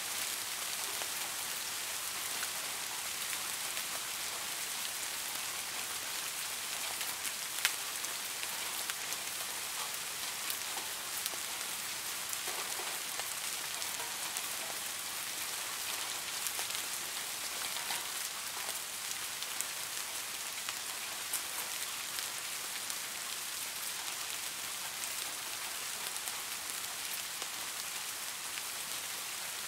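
Steady rain falling: an even, dense hiss with scattered individual drops ticking through it, one sharper drop about seven seconds in.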